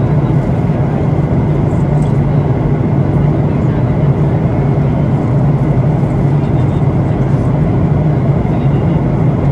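Cabin noise of a Boeing 737-800 heard from a window seat over the wing: the CFM56-7B turbofan engines and airflow give a steady low hum and rush during the descent on approach, with a faint steady whine above it.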